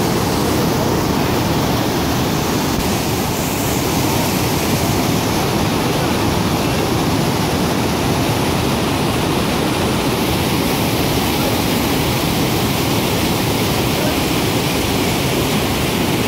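White-water rapids of a fast mountain river rushing over boulders: a loud, steady wash of water noise.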